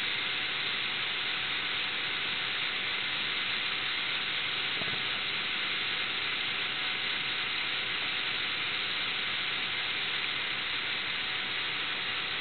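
Steady, even hiss, the self-noise of a low-quality camera microphone, with one faint tick about five seconds in.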